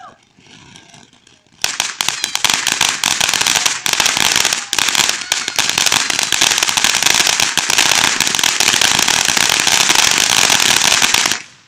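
Fireworks crackling: a dense, rapid string of sharp pops that starts about a second and a half in, keeps going without a break for about ten seconds, and stops abruptly near the end.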